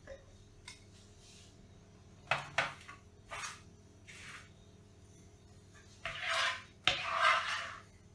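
Kitchen dishes and cutlery handled: a couple of sharp clinks about two seconds in and softer scrapes after them, then two longer, louder scraping sounds near the end.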